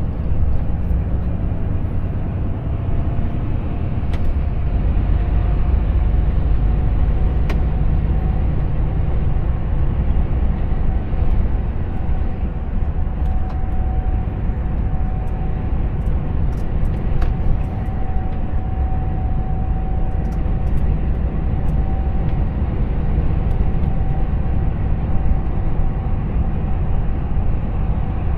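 Volvo FH 460 truck heard from inside its cab at motorway speed: steady low rumble of the 13-litre six-cylinder diesel and tyre and road noise while the truck gains speed, with a faint whine that rises slightly in pitch over the first ten seconds and then holds steady.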